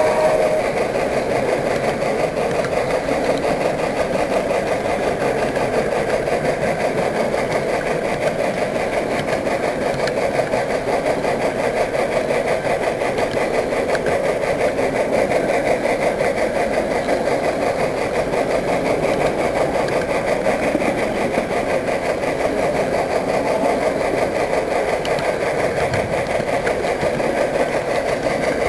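Model train running steadily along the layout's track, a continuous mechanical running sound with a fine rattle.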